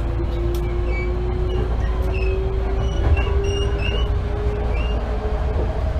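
Hankyu 8000 series electric train under way, heard from inside the car: a steady low rumble of wheels on rail, with a motor whine slowly rising in pitch as the train picks up speed.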